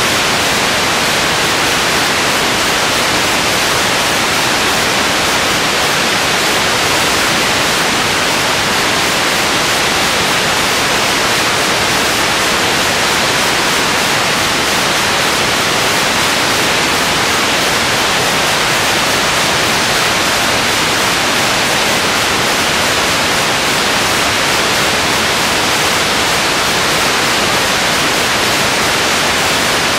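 Steady, loud hiss of static over the whole stretch, even and unchanging, with no other sound heard through it.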